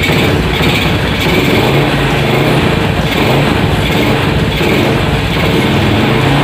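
Yamaha Vega R 110 underbone motorcycle's single-cylinder four-stroke engine running through its stock, original exhaust, engine speed rising and falling slightly.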